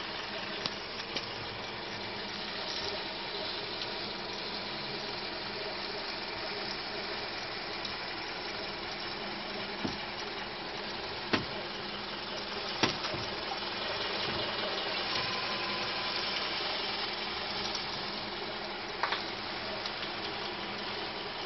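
Steady running noise of a Kia Ceed with a few sharp knocks scattered through it. The knocks are the front-end knock the owner is trying to locate.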